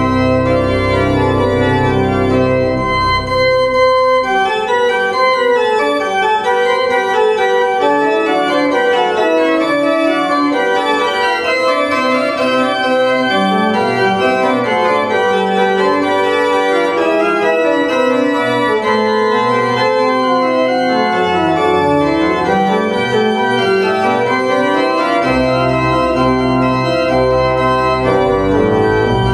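Organ music with sustained chords and moving melodic lines. The deep bass notes stop about four seconds in and come back near the end.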